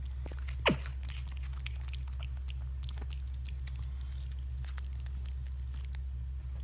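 Black-capped capuchin monkey chewing freeze-dried strawberry-banana fruit crunchies: a run of small crisp crunches over a steady low hum. One short squeak falls steeply in pitch just under a second in.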